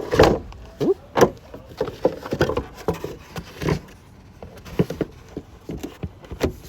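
Irregular hard plastic clicks and knocks from a turn signal lamp housing and its bulb socket being handled and fitted back into place. The loudest knocks come near the start and about a second in.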